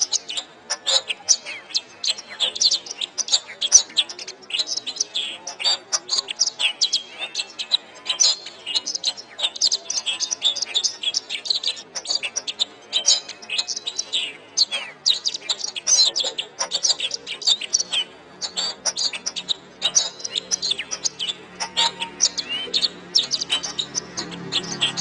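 Domestic canary singing a long, unbroken, rapid song of high chirps, trills and whistles.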